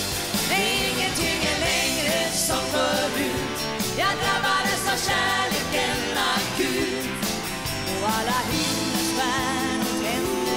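Live band playing an instrumental break between the verses of a country-pop ballad: drum kit and guitars, under a lead melody line that wavers in pitch.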